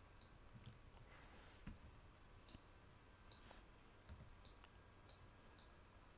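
Faint, irregular computer mouse clicks, a dozen or more, over near silence.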